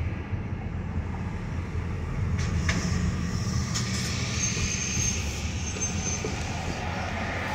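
Steady low rumble of road and engine noise heard from inside a moving car in city traffic, with an articulated city bus running close alongside. A few light clicks sound about two and a half seconds in, and a faint high whine comes in around the middle.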